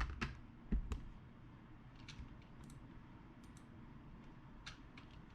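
Clicks from a computer keyboard and mouse: a few sharp, loud clicks in the first second, then scattered lighter clicks every second or so.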